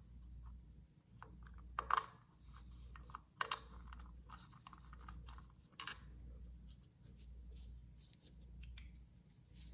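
Light clicks and taps of small plastic and metal parts being handled as the generator's brush holder is fitted and its wires are connected, the sharpest clicks about two and three and a half seconds in, over a low hum that swells and fades about once a second.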